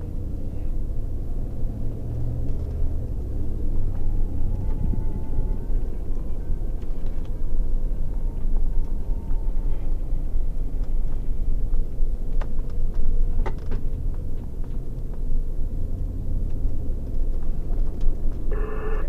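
Patrol car driving, heard from inside the cabin: steady engine and road rumble, with a few short clicks in the second half.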